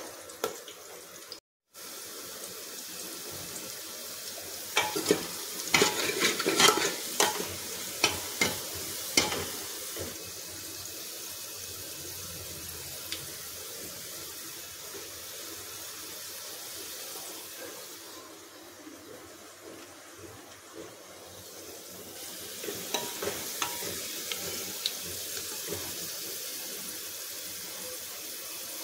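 Sliced onions sizzling steadily in hot oil in an aluminium pressure cooker, with a metal ladle clinking and scraping against the pot several times between about five and ten seconds in and again near the end.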